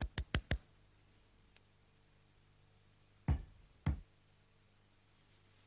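Four quick sharp clicks, then about three seconds later two dull thumps half a second apart, as a fist beats on a bare chest.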